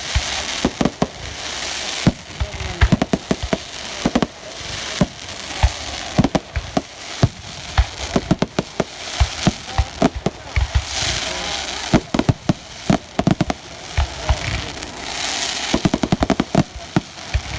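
Fireworks going off: a rapid, irregular run of sharp bangs and crackles, with stretches of high hissing between them.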